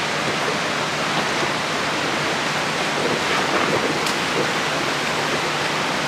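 Steady rush of stream water flowing through a rocky riverbed.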